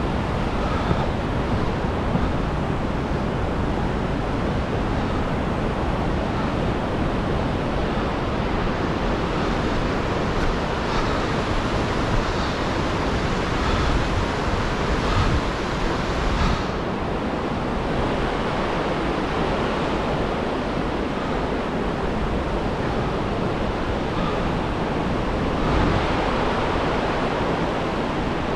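Steady rushing of whitewater rapids on a mountain river.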